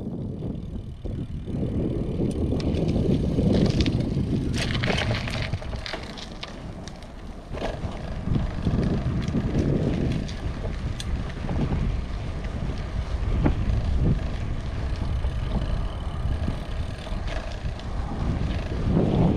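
Wind buffeting the microphone of a camera riding on a moving bicycle: a gusty low rumble that swells and fades every few seconds, with occasional sharp clicks.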